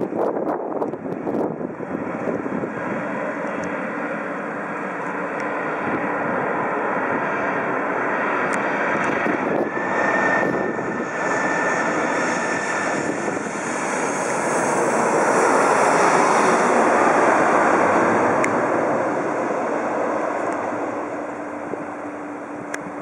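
Four-engined Airbus A340-300 jet airliner with CFM56 turbofans passing low overhead on landing approach. The engine noise builds steadily to its loudest past the middle, then fades as the aircraft moves away, with a brief high whine about ten seconds in.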